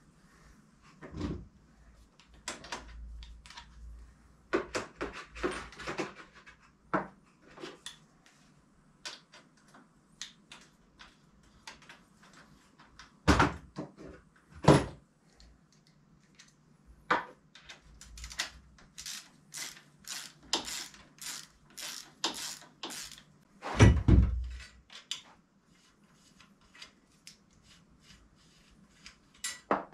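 Tools and parts being handled at a workbench: irregular clicks, knocks and clinks, with two louder thumps near the middle and another toward the end.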